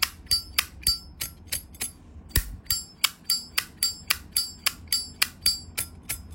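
Zippo lighter lid being flicked open and snapped shut over and over: a steady run of sharp metallic clicks, about three to four a second, each with a short bright ring.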